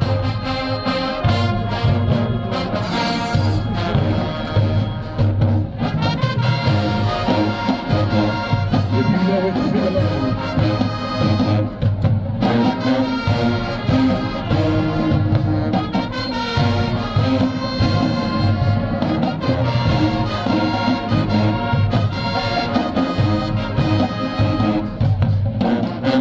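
Marching band playing, with brass carrying the tune over a steady beat.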